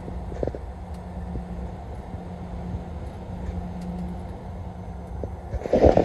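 Steady engine and road drone heard inside a moving vehicle's cab at highway speed, with a constant low hum. Near the end a louder, rougher noise comes in on the microphone.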